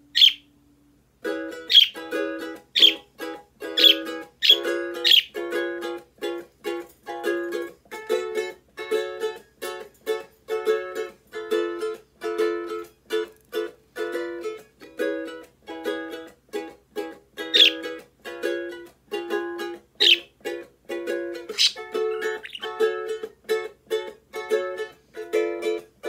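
Ukulele strummed in a steady rhythm, starting about a second in, with a pet bird's sharp chirps over it, several in the first five seconds and a few more later on.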